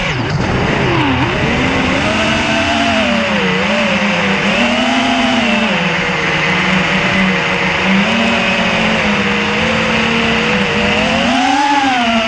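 FPV quadcopter's brushless motors whining under constant throttle changes, the pitch rising and falling over and over, flown in 3D mode.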